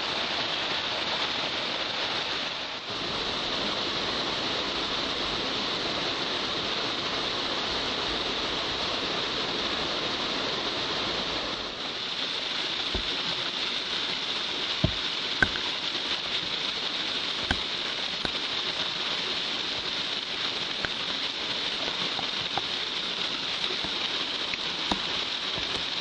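Steady rush of a waterfall's falling water, heard close to its foot, with a few sharp clicks in the second half.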